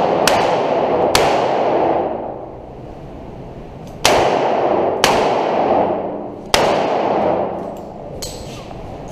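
Handgun shots fired in an indoor range: two about a second apart, then after a pause of about three seconds three more. Each shot is followed by a long echoing decay off the range walls.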